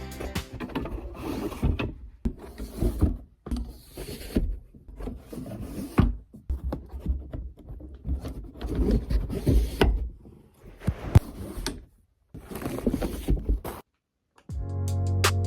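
Knocks, scrapes and rubbing of flat-pack dresser parts being handled and fitted, in irregular bursts with short pauses.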